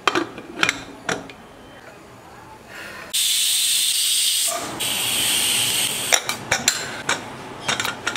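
Aluminium pressure cooker: a few sharp metal clicks of the lid, then a loud hiss of escaping steam for about a second and a half from about three seconds in. Softer steady noise follows, with clinks of the lid and handles near the end.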